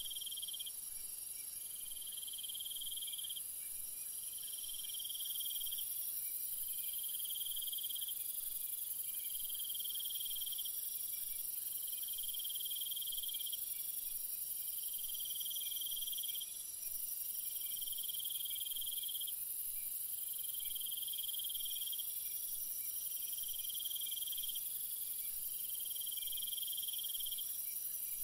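Insect chorus: a continuous shrill high-pitched buzz, with a trill that pulses on and off, each pulse about two seconds long and repeating roughly every two and a half seconds.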